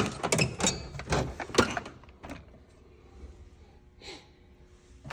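Drawers and tools of a steel rolling tool chest being handled: a quick run of sharp clacks and rattles over the first two seconds, then quieter handling with a soft knock about four seconds in.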